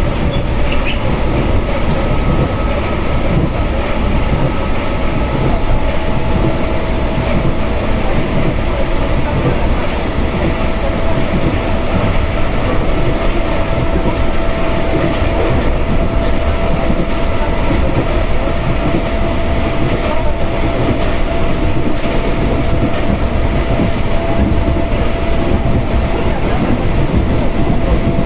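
Passenger train running at speed, heard from inside the car: a steady rumble of wheels on rails with the clickety-clack of rail joints, and a steady whine that joins about five seconds in.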